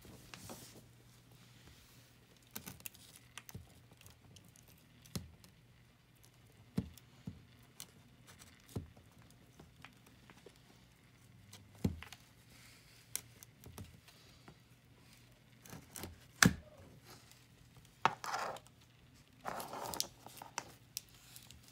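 A savannah monitor eating raw egg from a foam plate: irregular small clicks and scrapes of its claws and mouth on the plate, with a few longer rustling scrapes near the end.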